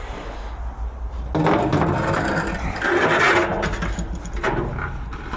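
A scrap radiator scraping and clattering as it is dragged and shifted, in a dense run of scraping and clicks starting about a second in and easing off after a couple of seconds.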